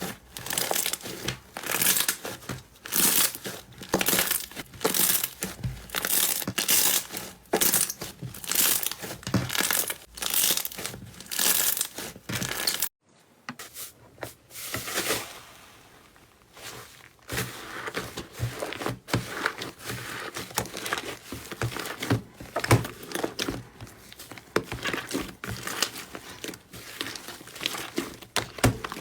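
Slime being squeezed and pressed by hand, crackling and popping in quick repeated squishes. It cuts off abruptly about 13 seconds in, stays quiet for a few seconds, then the crackly squishing starts again.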